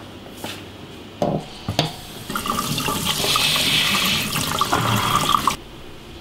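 Tap running onto hands being washed in a stainless-steel sink, the water splashing for about three seconds before stopping suddenly. A few short knocks come before it.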